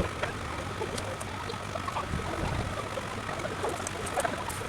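Truck-mounted crane's engine running steadily, with a few light clicks over it.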